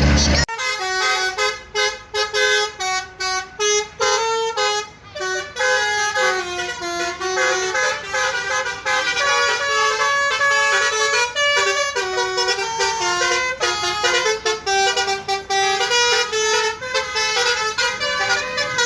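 Bus 'basuri' musical horn playing a tune: a string of loud, stepped horn notes with short breaks between them, starting about half a second in.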